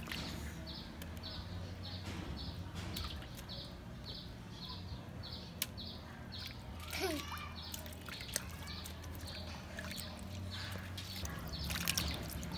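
Water splashing and dripping in a metal basin as a whole raw chicken is rubbed and turned by hand. Behind it, a short high chirp repeats evenly nearly three times a second, over a steady low hum.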